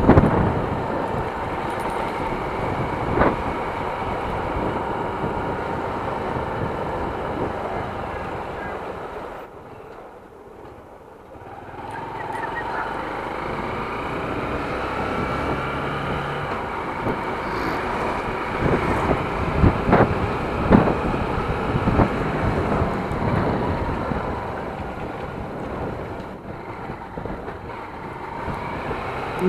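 Small motorcycle engine running on the move, with wind noise on the microphone. It goes quieter for a couple of seconds about ten seconds in, then picks up again with rising engine pitch. Later there are a few sharp knocks.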